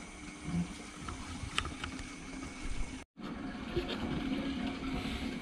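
Steady low hum of aquarium pump and filter equipment over a faint wash of moving water, with a few light ticks and a brief moment of total silence about three seconds in.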